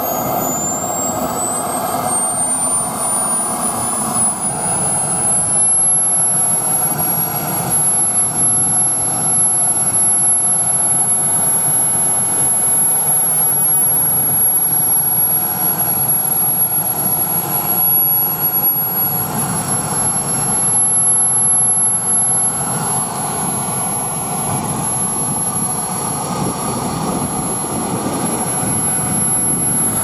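Small model jet turbine engine running. Its high whine rises over the first several seconds as it spools up, then holds steady at idle over a constant rushing of air.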